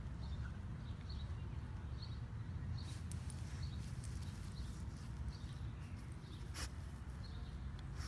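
Steady low outdoor rumble, with a small bird chirping over and over about once a second and a few faint clicks.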